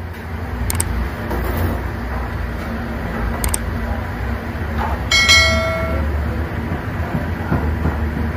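Busy street background: a steady low rumble of engines and traffic with a general hubbub, and a short, high pitched beep about five seconds in.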